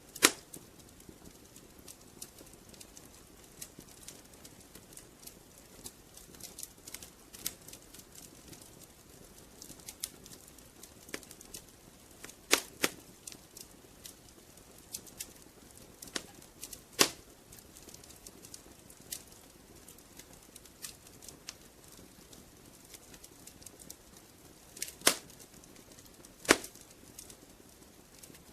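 Wood fire crackling in a fireplace: irregular sharp pops and snaps over a soft hiss, with a few louder pops.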